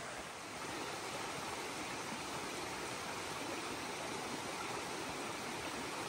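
Rushing water of a mountain waterfall and stream, a steady wash of noise that grows a little louder about half a second in.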